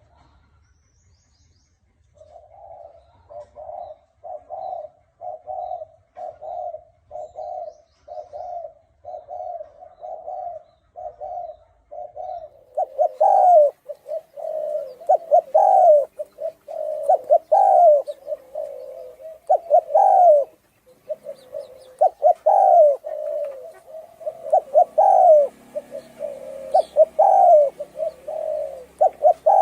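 Spotted dove cooing. First comes a run of short, soft coos about twice a second. From about halfway through, louder, fuller coo phrases with rising notes repeat every couple of seconds.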